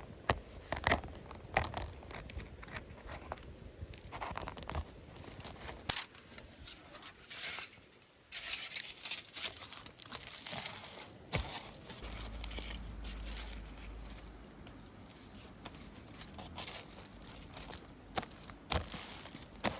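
Irregular rustling and crinkling with scattered light clicks and taps.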